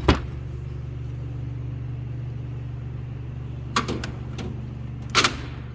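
Sharp metal clicks and short clatter of tools and toolbox drawers being handled: a double click at the start, then more clicks about four and five seconds in. A steady low hum runs underneath.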